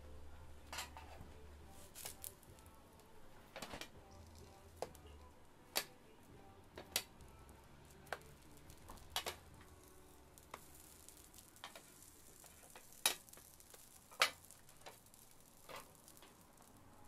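Hotteok frying in oil on a griddle: a faint sizzle under irregular sharp clicks and knocks of cooking utensils.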